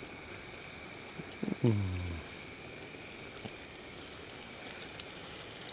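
Battered leek strands frying in hot oil in a wire deep-fry basket: a steady sizzle with scattered small crackles. About one and a half seconds in, a man's voice makes a brief sound that falls in pitch.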